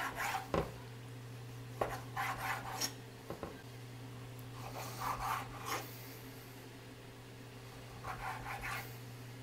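Chef's knife slicing raw duck breast into strips on a wooden cutting board: short runs of knife strokes knocking and scraping on the board, with pauses between them. A steady low hum runs underneath.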